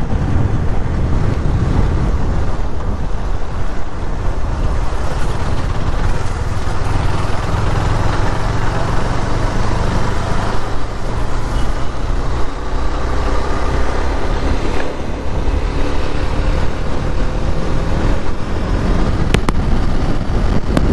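Steady wind and road noise of a motorcycle ride at highway speed, with faint rising and falling tones from passing traffic in the middle.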